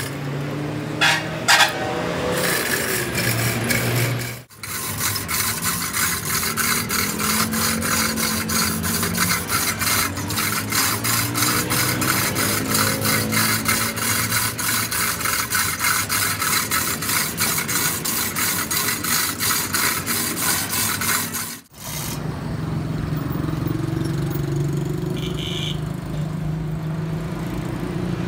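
Manual chain hoist being worked by its hand chain: the chain runs clattering through the hoist with rapid, even clicking as a heavy truck tyre is lifted on its chains. Near the end the clicking gives way to a steadier low hum.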